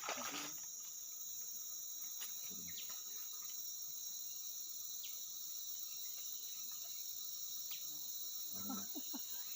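Steady chorus of insects, a constant high-pitched drone with several shrill tones held unchanged throughout, with a few faint clicks.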